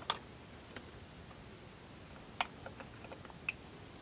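Faint, scattered clicks and taps from power leads and their plastic plug-in connectors being handled: a sharp click right at the start, another a little over two seconds in, and a few softer ticks after it.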